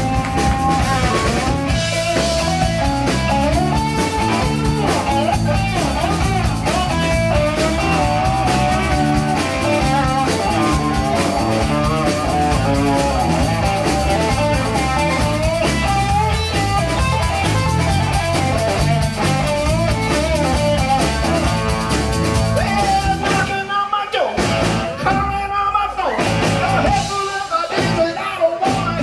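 Live rock band playing an instrumental break: an electric guitar lead with bending notes over bass and drum kit. In the last few seconds the band cuts out in short stop-and-start hits.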